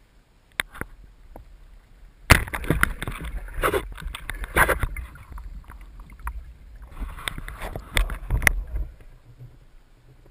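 Water rushing and knocking against an underwater camera housing as a freediver kicks and moves under water, in two loud noisy stretches with a quieter gap between them.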